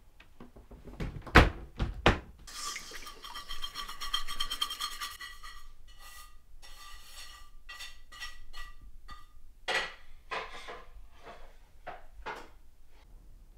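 Dishes being washed in a stainless-steel kitchen sink: plates and bowls clinking, clattering and rubbing, with a ringing stretch a few seconds in. Two loud knocks come near the start.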